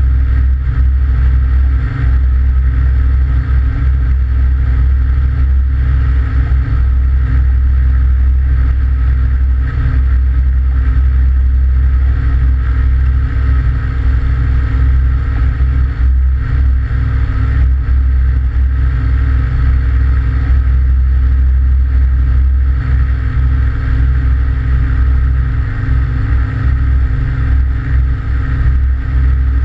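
Aventura amphibious ultralight's engine and propeller running steadily at high power as the hull runs across the water, heard from a camera mounted outside on the hull, with wind and spray noise over it.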